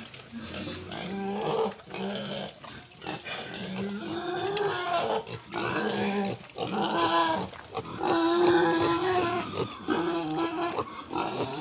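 Young Large White × Landrace cross piglets calling in a pen, a string of short pitched grunts and squeals one after another.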